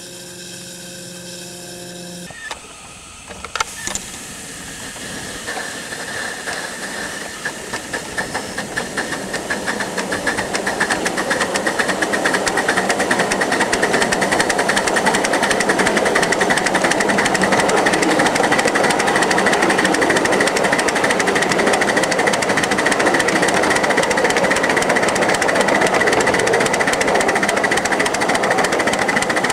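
1-inch-scale live-steam 0-4-0 switcher locomotive pulling away. Its exhaust chuffs start slow and quicken, getting louder over about ten seconds, then settle into a rapid, steady beat as it runs along the track. A short held tone and a few clicks come just before it starts moving.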